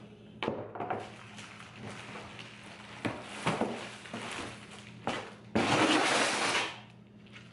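Rustling and light knocks of packing material being handled inside a cardboard box. About five and a half seconds in comes a loud crinkling of plastic wrap, lasting about a second, as a plastic-wrapped headlight is pulled out.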